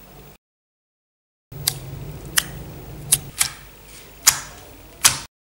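Glossy gold slime being poked and pressed with a finger, making sharp pops and clicks: six of them over about four seconds, starting a second and a half in.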